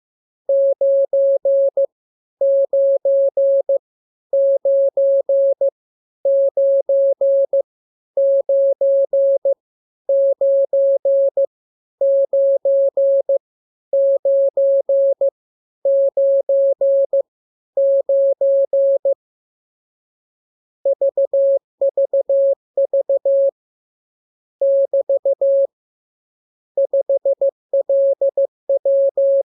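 Morse code (CW) practice tone: a single steady beep keyed on and off in dots and dashes. The same short group of characters repeats about ten times with brief gaps, then after a pause about 20 seconds in, different characters are sent.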